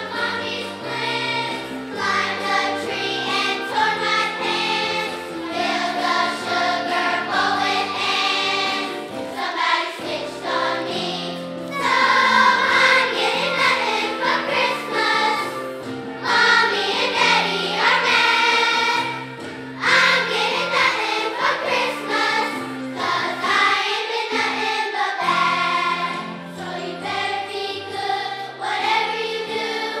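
Children's choir singing a Christmas song together over an instrumental accompaniment with a steady bass line.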